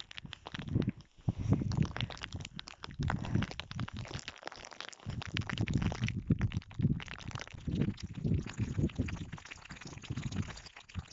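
Hailstones striking in a dense, irregular patter of sharp ticks, over low rumbling that comes and goes in gusts.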